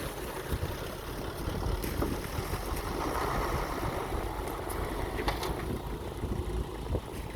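Heavy diesel vehicle running with a steady low rumble, with a few short clanks and rattles about five seconds in.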